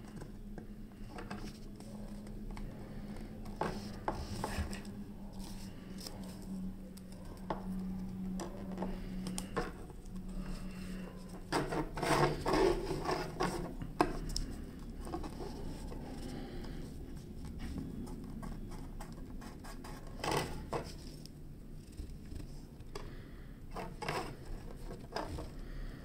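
Close-up handling noises of a keyboard circuit board and its small parts on a wooden tabletop: light taps, clicks, scrapes and rustles, with a louder rustling cluster about twelve seconds in. A low steady hum stops about eleven seconds in.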